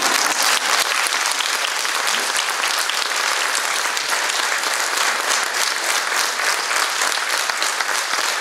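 Audience applauding: dense, steady clapping that sets in all at once and keeps up evenly.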